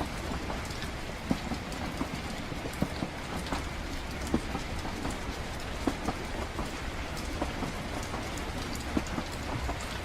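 Train-ride ambience of a moving train at night: a steady low rumble with rain falling, and irregular sharp ticks scattered through it.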